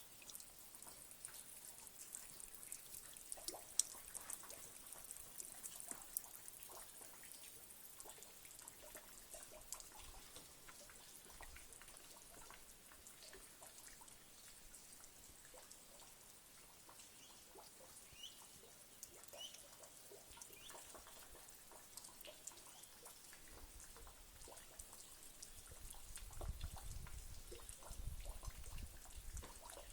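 Spring water dripping and trickling faintly in many small scattered drips. A couple of short high chirps come about two-thirds of the way in, and a low rumble rises near the end.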